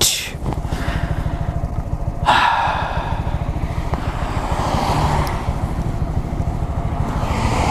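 2017 Honda Grom's small single-cylinder engine running while being ridden, with a steady low pulsing exhaust note. About two seconds in, a rush of wind and road noise comes in over it and stays.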